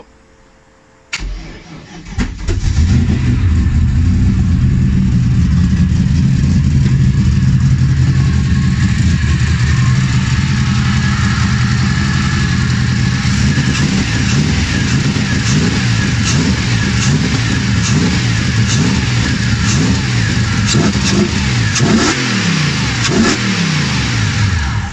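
The freshly built BMW M60B44 hybrid V8 is cranked on the starter for its first start. It catches about two seconds in and keeps running steadily. Its pitch falls near the end as it slows. The running shows that the new build runs.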